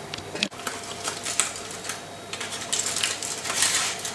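Aluminium foil of a baked food packet crinkling and rustling as it is handled, with light clicks of a metal utensil in the foil. It is an irregular crackling, busiest near the end.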